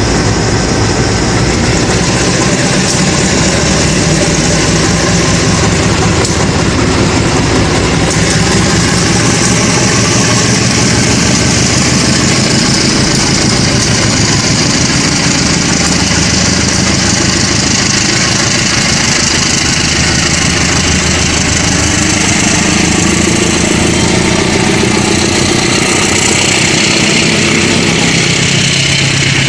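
Diesel engine of a CC 203 diesel-electric locomotive running loud and steady under load as it pulls a passenger train away from the platform.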